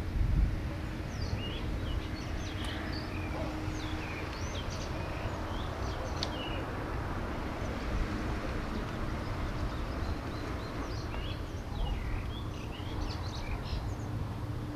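Outdoor harbour ambience: a steady low rumble with a faint steady hum, over which small birds chirp in quick short calls, in two spells.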